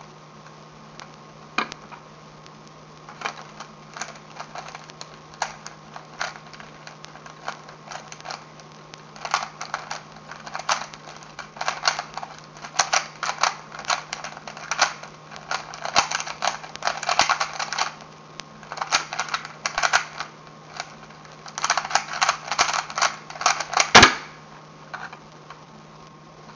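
Plastic 3x3 Rubik's cube being turned rapidly by hand in a speed solve: a stream of quick clicking and clacking layer turns, sparse at first and much denser from about nine seconds in. Near the end comes one sharp, loudest slap, the hands coming down on the Stackmat timer to stop it.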